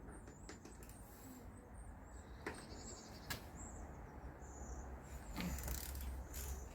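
Birds chirping faintly in short high calls, with two sharp clicks about two and a half and three and a half seconds in.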